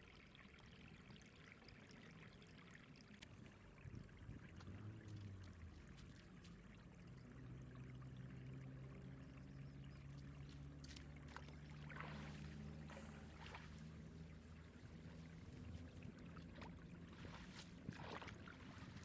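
Faint water pouring and trickling, with a few brief splashy rushes in the second half. A low steady hum runs under it through the middle.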